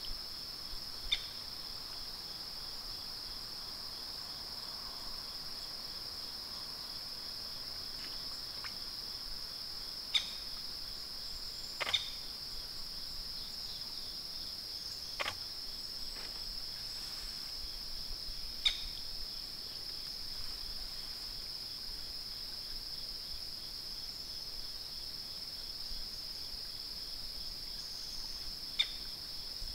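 Steady high-pitched insect drone, like crickets, running without a break. A handful of short sharp clicks sound now and then over it.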